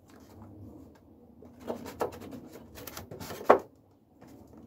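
Handling noise and a few light knocks as tools and polystyrene are moved about on the layout's baseboard, with one sharper knock about three and a half seconds in.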